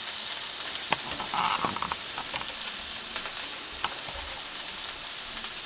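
Onions and bell peppers sizzling in a frying pan: a steady hiss with scattered small pops and crackles.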